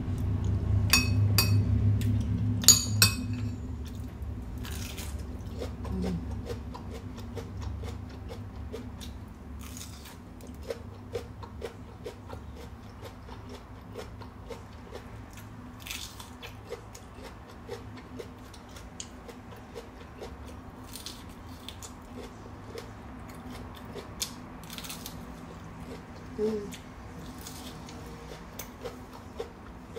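A metal spoon clinks against a ceramic plate a few times in the first three seconds, over a low rumble that fades after a few seconds. Then comes close-up eating: soft chewing and small mouth clicks while a piece of raw red bell pepper is bitten and chewed.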